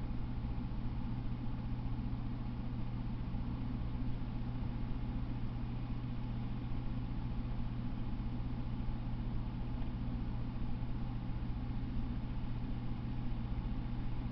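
Steady low hum under a constant hiss, unchanging throughout.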